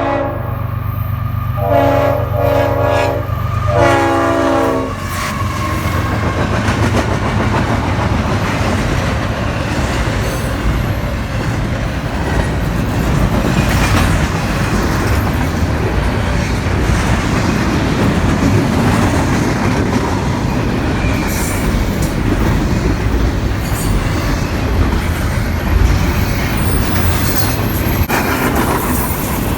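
Nathan Airchime RS-5T five-chime horn on a CSX freight locomotive: the end of one blast, then two more blasts of about a second each in the first five seconds. After that the freight train runs past with a steady rumble and the clickety-clack of wheels over rail joints.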